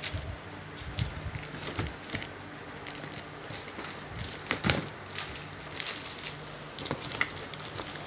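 Scattered knocks and crinkles of a plastic-wrapped cardboard box being handled and opened by hand, the loudest about four and a half seconds in, over a low steady hum.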